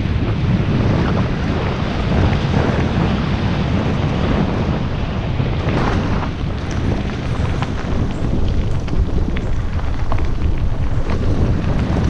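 Wind buffeting a helmet-mounted GoPro Hero5 Black's microphone on a fast mountain-bike ride, a steady low rumble, with scattered crunches and clicks from the tyres on the gravel trail.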